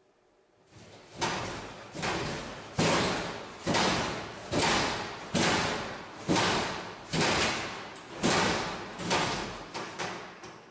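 Loud, evenly spaced banging: about a dozen heavy slams a little under a second apart, each dying away before the next.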